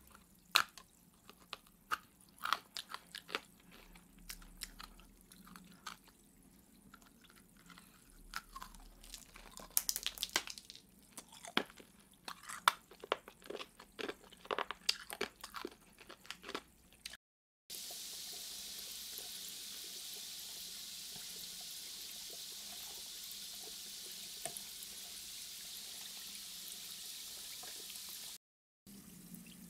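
Biting and crunching a giant hard blue crystal candy: scattered sharp crunches and cracks, some louder bites in the middle. After a cut, a steady even hiss runs for about ten seconds.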